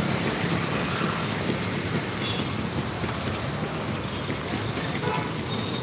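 Steady rushing road and wind noise from riding along a city street in a moving vehicle, with a low engine hum at first and a brief faint high whine about four seconds in.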